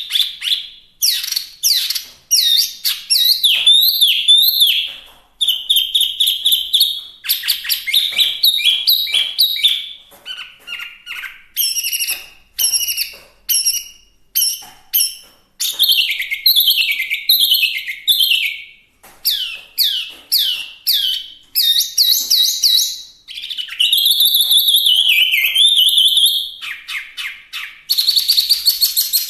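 Chinese hwamei (wambi) singing loudly and without pause: a long, varied song of rapid repeated notes, sweeping whistles and trills, changing phrase every second or two.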